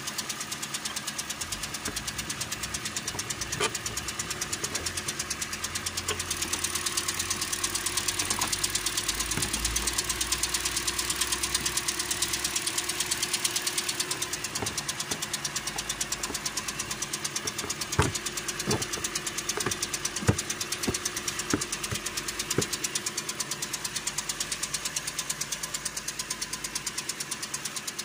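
Toyota Corolla 2.0 four-cylinder engine running with a rapid, even knock, which the owner takes for a worn connecting rod bearing. A few louder sharp clicks stand out about two-thirds of the way in.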